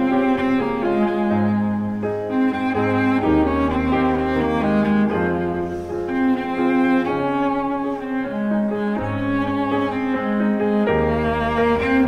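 Background music: a slow instrumental piece of bowed strings, led by cello, with piano, its notes held for a second or more each.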